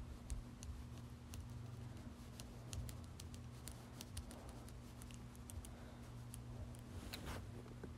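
Faint light clicks, several a second and unevenly spaced, over a low steady hum, with a short scraping rustle near the end.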